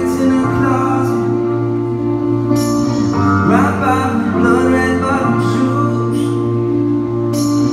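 Live band music: a slow passage of sustained, held chords with a singing voice coming in briefly partway through.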